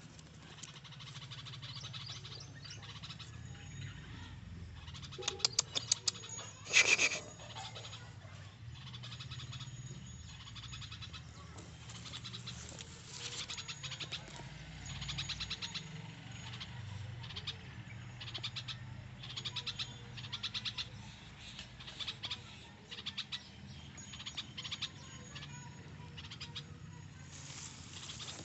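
Bulbuls calling: bursts of short, rapid, high chirps repeating throughout, loudest about six to seven seconds in, over a low steady background rumble.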